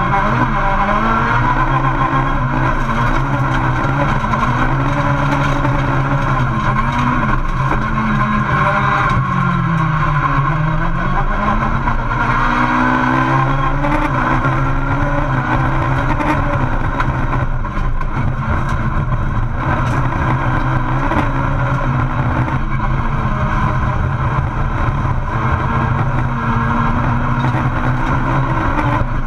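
VW Polo Super 1600 rallycross car's engine heard from inside the cabin, racing hard. Its pitch rises and falls again and again with throttle and gear changes.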